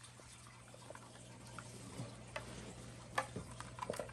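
Light clicks and taps of hands handling PVC pipe pieces and a balloon while fitting a DIY air horn together, over a faint steady low hum.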